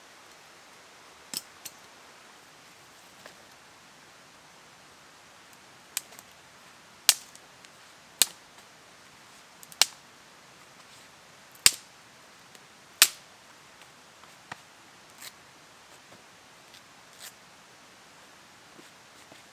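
Dry twigs snapped by hand, a series of sharp single cracks about a second or two apart, the loudest in the middle stretch.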